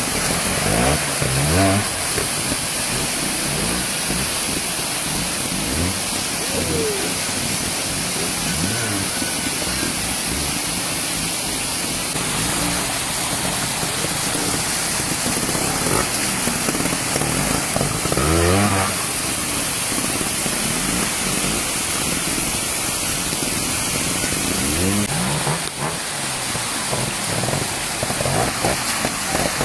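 Trials motorcycle engines revving in short rising bursts, about seven times, over the steady rush of a fast-flowing stream.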